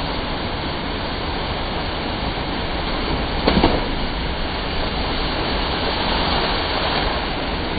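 Waterfall, a steady roar of falling water, with a brief louder sound cutting through about three and a half seconds in.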